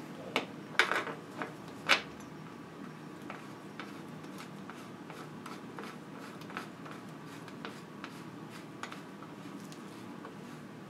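Small clicks and taps of gloved hands fitting a pedal assist sensor and bottom bracket into a bicycle frame, with a few sharper clicks in the first two seconds and faint scattered ticks after, over a low steady hum.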